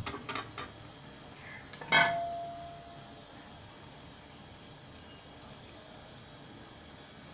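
A few light scrapes of a spatula in a kadhai of chicken, then a sharp clink that rings briefly about two seconds in, the loudest sound. After that, water pouring into the hot pan with a faint steady sizzle.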